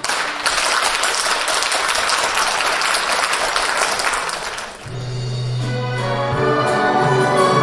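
Audience applauding for about five seconds after a song ends, then the orchestral introduction of the next song starts on a held low note.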